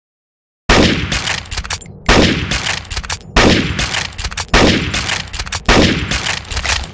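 Mauser Gewehr 98 bolt-action rifle in 7.92×57mm firing five shots, about a second and a quarter apart. Each shot has a ringing tail and a quick run of sharp clicks.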